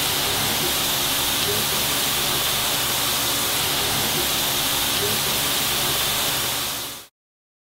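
Soy-marinated shrimp sizzling in a skillet: a steady hiss that cuts off suddenly near the end.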